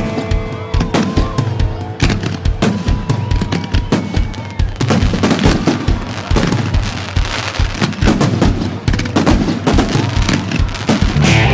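Rapid barrage of firework bursts, several sharp bangs a second, with music playing underneath.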